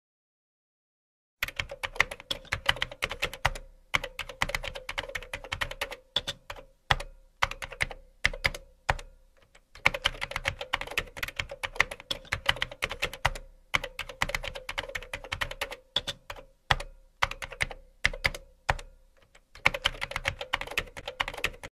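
Computer keyboard typing sound effect: rapid key clicks in runs of a few seconds, broken by short pauses, starting about a second and a half in.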